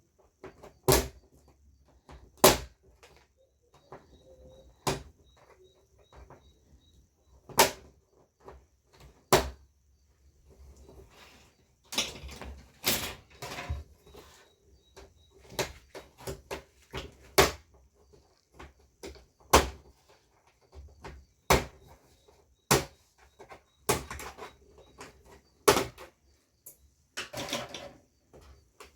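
Irregular sharp clicks and knocks from the parts of an LED TV being handled and pried apart during disassembly. They come more thickly in the second half.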